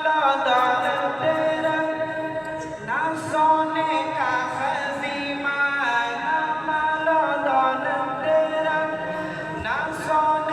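Unaccompanied voices singing a naat, an Islamic devotional song, in long held notes that slide in pitch from one note to the next.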